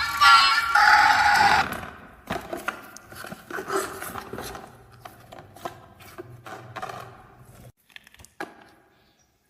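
Music ends about two seconds in, then marbles roll and clatter down a wooden marble run: a quick, uneven run of small clicks and knocks that thins out to a few last ticks near the end.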